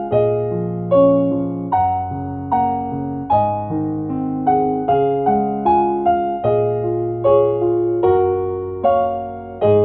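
Background music: electric piano playing a gentle melody of held notes, a new note about every half second.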